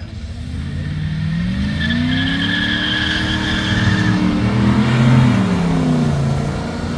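Pontiac Firebird engine revving as the car drives close past, with a high tyre squeal about two seconds in. The sound peaks about five seconds in, then the engine note drops in pitch as the car goes by.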